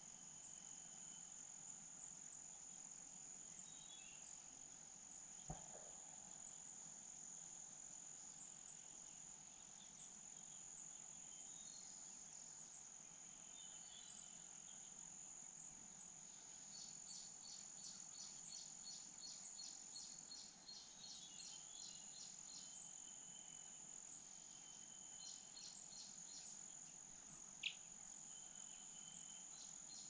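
Insects chirring in a steady high-pitched drone, with a small bird's quick series of high chirps partway through and again near the end. There is a single soft tap about five seconds in.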